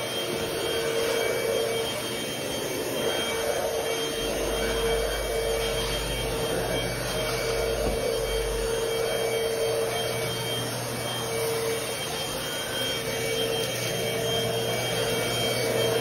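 Cordless stick vacuum cleaner running steadily, a whining motor tone over a rush of airflow, its level rising and falling slightly as it works over the floor.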